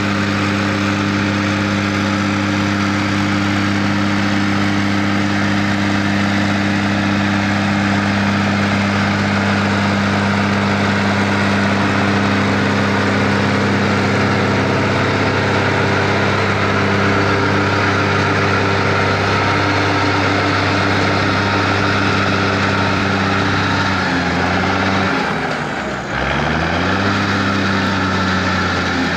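Schlüter tractor's diesel engine running at a steady speed. About 25 seconds in the engine speed sags, then picks up again a second or two later.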